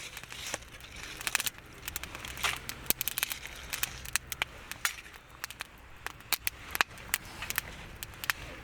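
Wood campfire crackling, with sharp, irregular pops scattered throughout.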